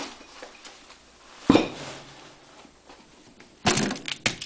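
An American Kami Colubris knife being worked free of a wooden rafter. There is a sharp knock about a second and a half in, then a short rough burst of noise and a click near the end as the blade is wrenched out of the wood.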